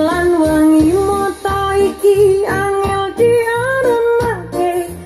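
A song with a female singer over a pulsing bass line, played through a repaired 12-inch loudspeaker as a sound test.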